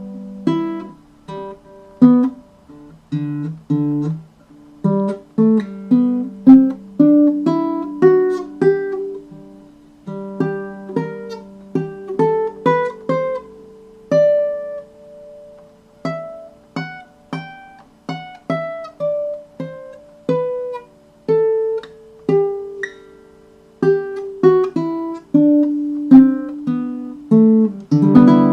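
Sound-sation baritone ukulele played fingerstyle: a melody of single plucked notes, a few a second, each ringing and dying away, with a full chord strummed near the end.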